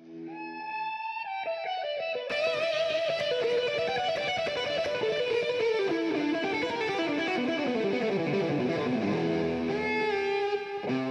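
Guitar-led background music fading in from silence, with a fuller sound coming in about two seconds in.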